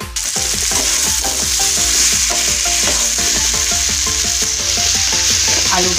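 Diced boiled potatoes sizzling in hot oil in a frying pan as they land in the onion masala and are stirred with a spatula. The sizzle starts suddenly about a quarter second in and then holds steady, with soft background music underneath.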